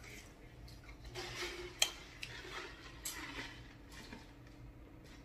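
Quiet handling of a large plastic juice jug, with a sharp click a little under two seconds in, then a man drinking from the jug.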